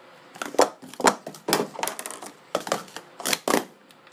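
Pro Series 2 sport-stacking plastic cups clacking against each other and the stacking mat in a quick run of sharp clicks as a set is upstacked and downstacked, starting about half a second in and stopping near the end.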